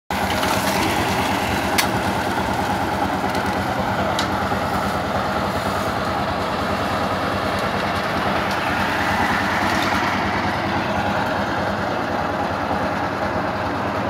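Engine of concrete-pouring machinery running steadily, with two short sharp clicks about two and four seconds in.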